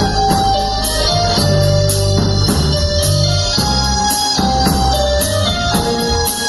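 Instrumental intro of a rock song: drum kit keeping a steady beat under a bass line and a held keyboard melody.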